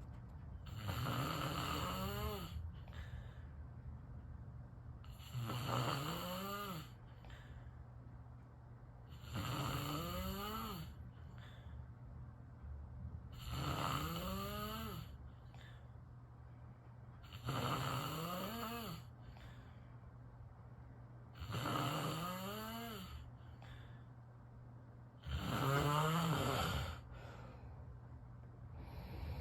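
A sleeping person snoring: seven regular snores about four seconds apart, each lasting about a second and a half, with the pitch rising and then falling.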